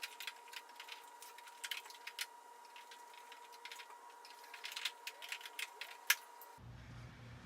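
Irregular plastic clicks and rattles as a discharge chute is handled and fitted onto an EGO 21-inch battery lawn mower, with one sharper click about six seconds in. A faint steady high tone runs under it and stops near the end, where a low hum takes over.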